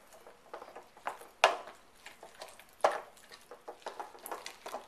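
Wooden spoon stirring a thick ricotta cheese filling in a glass mixing bowl: soft scraping with irregular clicks of the spoon against the glass, two of them sharper, about a second and a half and about three seconds in.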